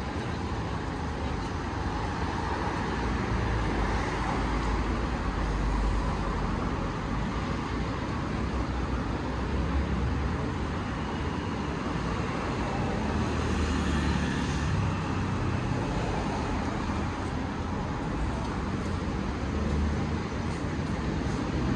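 Steady road traffic on a busy city avenue: a continuous wash of passing cars and engine rumble.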